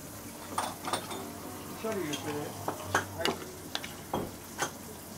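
Eating sounds close to the mic: a spoon clicking and scraping against a rice bowl, with chewing, in a string of short sharp clicks.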